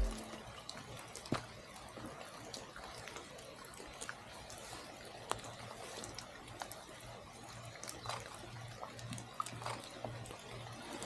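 Faint trickling and dripping water at a natural spring in the rain, with scattered small drips and taps.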